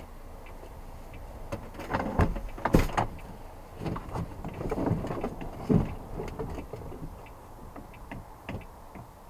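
A run of knocks and clunks, with the loudest thumps about two to three seconds in and again near six seconds in.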